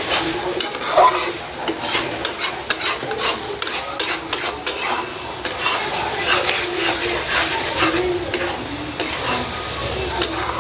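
Minced chicken and grated pointed gourd sizzling as they fry in oil in a pan, stirred with a utensil that scrapes and clinks against the pan at irregular moments.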